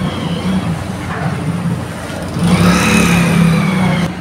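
Street traffic: a motor vehicle passes close by, its engine loudest from about two and a half to four seconds in, with a slightly falling pitch, then the sound cuts off suddenly.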